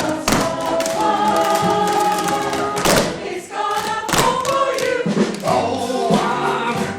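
A chorus of voices singing a musical-theatre number over band accompaniment, with a few sharp percussive hits.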